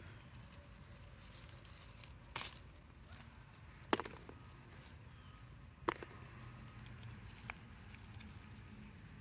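Banana pepper stems snapping as the peppers are picked off the plants by hand: four short, sharp snaps a second or two apart, the loudest about four seconds in.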